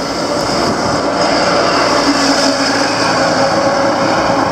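A motor vehicle driving past close by, its engine and tyre noise loud and steady.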